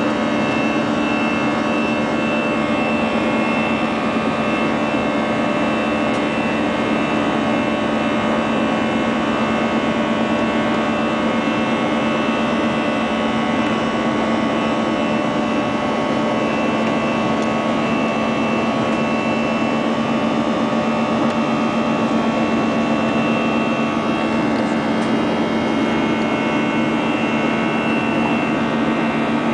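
Airbus A319 jet engines heard from inside the passenger cabin in flight: a steady drone with several steady whining tones over it.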